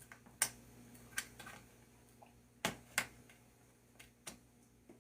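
Scattered sharp clicks and ticks, about six of them, as a thin blade pries the cracked screen panel of an HP Envy x360 laptop loose from its frame; the loudest come about half a second in and twice close together near the middle.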